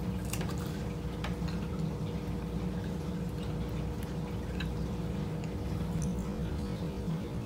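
Faint mouth sounds of biting and chewing dry beef jerky: a few scattered clicks and smacks over a steady low hum.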